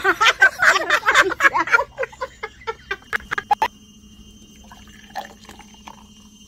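A woman laughing loudly, her laugh trailing off over a few seconds. Then orange soda is poured from a plastic bottle into a glass, a faint liquid pouring sound.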